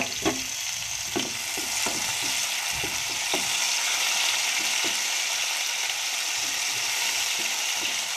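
Chopped tomatoes sizzling in hot oil with browned onions and garlic, the tempering (baghar) for a dal. A wooden spatula stirs them, scraping and knocking against the pan at irregular intervals.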